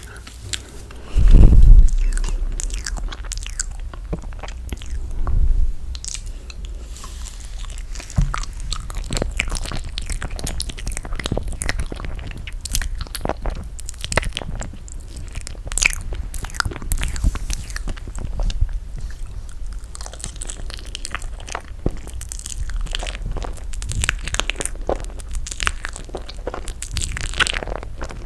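Close-miked chewing and biting of toasted marshmallow, with many small sticky, wet mouth clicks and crunches at an irregular pace. A heavy low thump comes about a second in.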